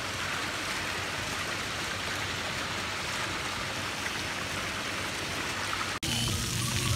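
Water cascading from a tiered stone fountain into its basin: a steady, even splashing rush that cuts off abruptly about six seconds in.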